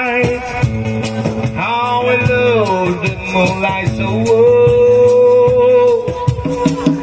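Live reggae band playing an instrumental passage: a harmonica played into the vocal microphone carries the melody, with a note bent downward and then a long held note, over acoustic guitar and a steady shaker.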